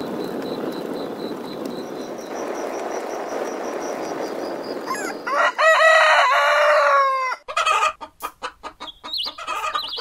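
A steady rushing noise, as of a fire burning. About halfway through it gives way to a rooster crowing loudly for about two seconds, followed by a run of quick clucks.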